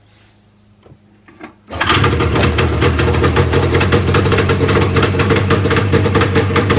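1981 Ski-Doo Blizzard 9500 snowmobile's two-stroke engine starting: a few faint clicks, then it catches suddenly under two seconds in and runs loud and fast with a steady, rapid beat.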